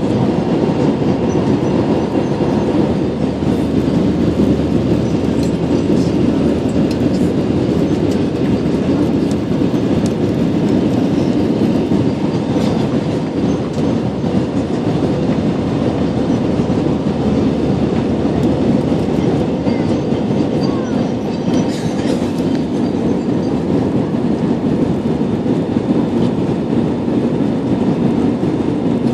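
Steady cabin noise of a Saudia airliner, the jet engines and airflow heard from inside, with a few faint clicks.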